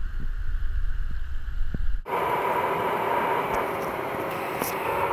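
A low rumble for about two seconds, then an abrupt cut to the steady cabin noise of a jet airliner in flight: an even rushing hiss with a faint hum.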